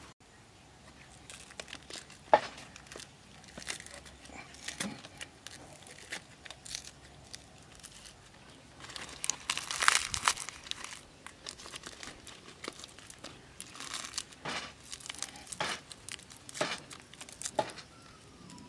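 Crinkling, rustling handling noise with scattered sharp clicks and knocks as leaves are crumpled and pushed into the open ends of green bamboo tubes. The longest, loudest crinkling comes about ten seconds in.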